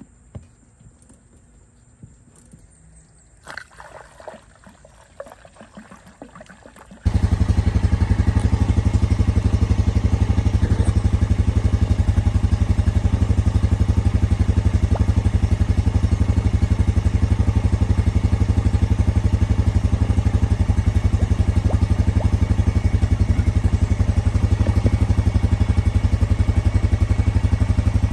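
A few light clicks and rattles, then from about seven seconds in the Honda Rubicon ATV's single-cylinder engine runs steadily at an even, unchanging speed.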